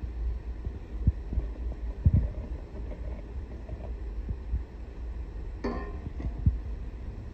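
Low rumble and scattered soft thumps from the bowls and phone being handled, with one brief clink near the end as a stainless steel bowl knocks against the rim of a glass mixing bowl while flour is tipped in.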